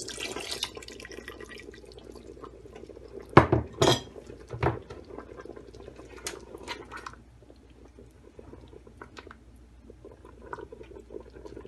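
Cornflour-and-water mixture poured into a pot of soup, then a few loud clanks of a utensil against the metal pot and lighter clinks while it is stirred in.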